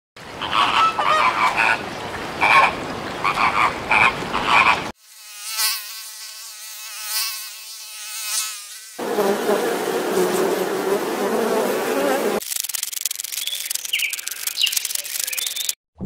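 A flock of flamingos calling with repeated short honks. About five seconds in, a mosquito's whine takes over for some four seconds, wavering slightly in pitch. After it comes a stretch of steady noise, then a few faint high chirps.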